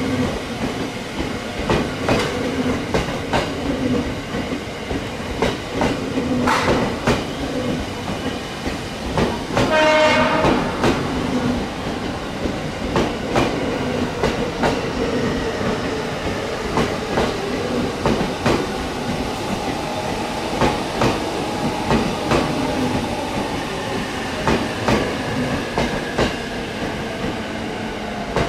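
JR East 209 series electric train running through, its GTO-VVVF inverter and traction motors giving a wavering tone under steady clickety-clack from the rail joints. A short pitched blast about ten seconds in.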